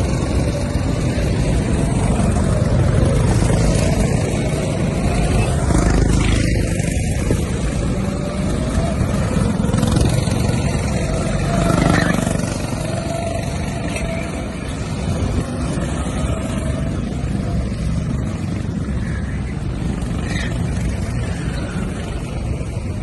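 Go-kart engines running as karts lap the track, a steady mechanical drone with a kart passing close and briefly louder about twelve seconds in.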